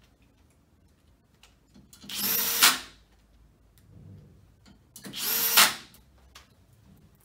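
Cordless drill-driver running in two short bursts of about a second each, about three seconds apart, driving the long screws that fasten a desk foot onto the lift column from above.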